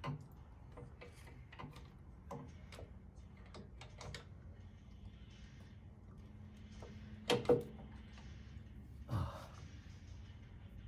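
Light clicks and taps of parts and hand tools being handled on a motorcycle during an oil cooler fan installation, with two louder sharp knocks close together about seven seconds in and a duller thump about two seconds later.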